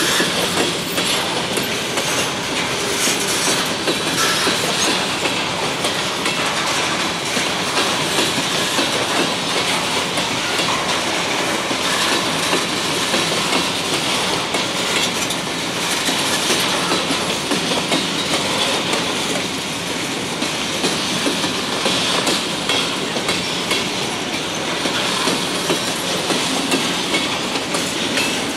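Loaded freight train of covered hopper cars rolling past, the steady clatter of steel wheels on the rails and over the grade crossing.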